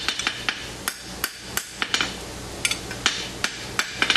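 Hand hammer forging a red-hot steel tong blank on an anvil: about a dozen sharp blows, roughly three a second and unevenly spaced, each with a short metallic ring.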